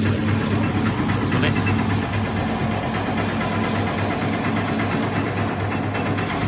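Electric bread slicer running: a steady low motor hum with a fast, even rattle from the reciprocating blade frame sawing back and forth.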